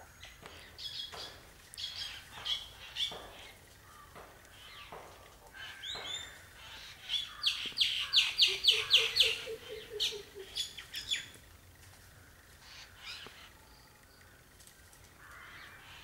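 Rufous treepie calling: scattered short calls, then in the middle a fast run of about ten clipped notes, the loudest part, followed by a few more calls that tail off.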